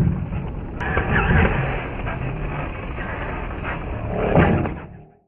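Radio-controlled monster truck driving over grass and concrete: steady motor and tyre noise, with a loud thump at the start and another about four and a half seconds in as it lands. The sound fades out just after five seconds.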